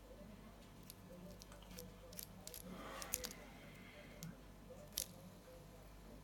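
Light clicks and taps of a plastic fidget spinner being handled and flicked between the fingers, with a short scrape and a louder click about three seconds in and another sharp click about five seconds in.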